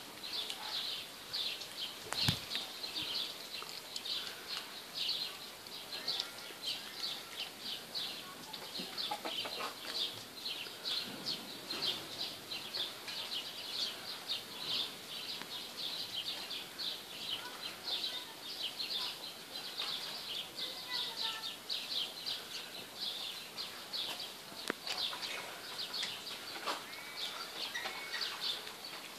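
Continuous high-pitched chirping from small animals, a dense, rapidly pulsing chorus, with a few separate chirp notes and a sharp click about two seconds in.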